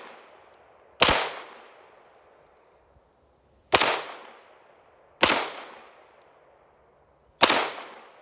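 CZ Scorpion 9mm pistol fired four single shots at uneven intervals, about a second in, then near the middle, then twice more toward the end. Each shot trails off in a long echo.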